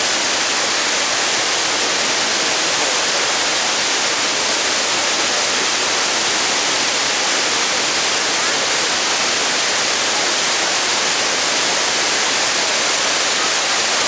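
Water thundering down a concrete dam spillway with its floodgates open: a loud, steady, unbroken rush, more hiss than rumble.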